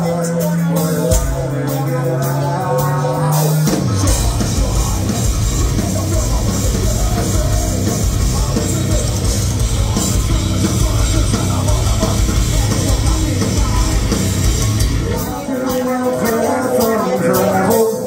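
Heavy metal band playing live with distorted electric guitars, bass and drums. The guitars and bass hold long low notes at first, then about four seconds in the band breaks into a fast, pounding riff with rapid drumming, which gives way to a slower riff near the end.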